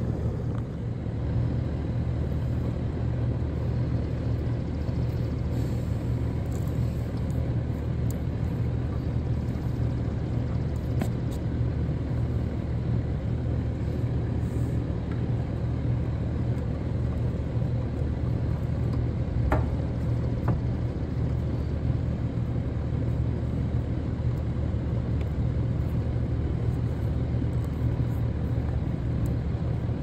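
Old TempStar R22 air-conditioner condensing unit running with a steady low hum from its compressor and fan, while the system is low on refrigerant charge (suction around 13 psi). A faint click about two-thirds of the way through.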